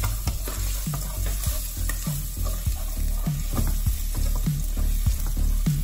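Chopped onion sizzling in a hot stainless steel pot, with a steady hiss, as it is stirred with a wooden spoon.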